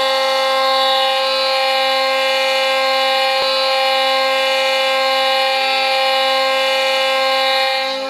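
Ice hockey arena goal horn blowing one long, steady, loud blast, fading right at the end.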